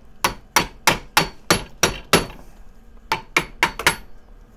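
Mallet striking a silver ring shank on a steel ring mandrel to form it round: a run of seven sharp knocks about three a second, a pause of about a second, then five quicker knocks.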